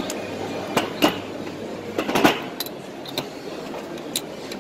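Irregular metal clicks and clinks as the crimping head is fitted onto a Milwaukee M18 cordless hydraulic cable cutter/crimper, over steady background hubbub. The loudest knocks come about a second in and just past two seconds in.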